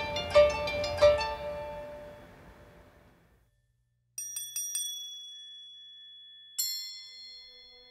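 Background music: plucked notes ring out and fade to silence about three seconds in. About a second later, a quick run of high, bell-like chime strikes follows, with one more strike near the end, each left ringing.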